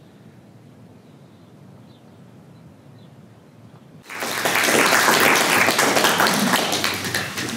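Faint outdoor background with a few soft bird chirps, then about four seconds in an audience suddenly breaks into applause that carries on loudly.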